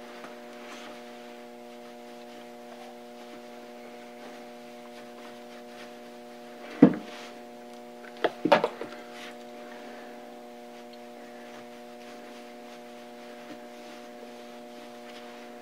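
A steady hum of several even tones runs throughout. Over it, a sharp metal knock about seven seconds in is followed a second later by a few quick clinks, as the greased spindle and its gear are handled and fitted into the Brown & Sharpe dividing head's body.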